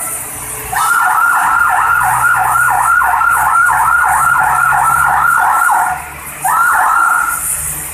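Bus 'telolet' multi-tone air horn playing a fast warbling pattern of about three pitch sweeps a second for roughly five seconds, breaking off briefly, then one more short burst near the end. The bus engine hums underneath.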